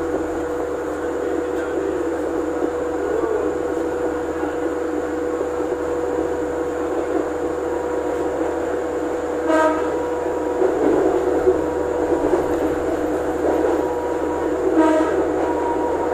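KRDI diesel multiple unit heard from inside its driver's cab while under way: a steady running rumble of engine and wheels on the rails, with a constant tone through it. Two short, sharp sounds come through, about ten and fifteen seconds in.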